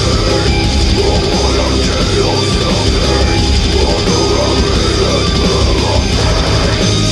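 Loud heavy rock music with distorted electric guitar, playing without a break.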